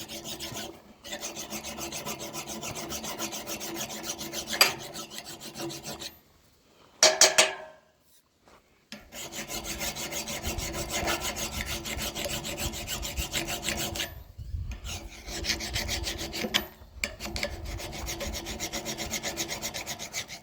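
Hand file rasping along the steel edge of a splitting axe in quick, even strokes, sharpening the freshly ground bevel. It stops briefly a few times, and there is a single ringing metallic clink about seven seconds in.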